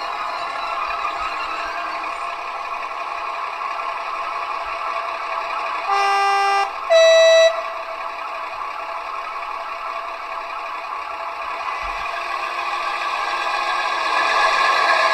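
Gauge 1 V 160 model diesel locomotive's sound decoder playing its diesel engine sound, with two short horn blasts about six and seven seconds in, first a lower tone, then a louder, higher one. The engine sound grows louder near the end.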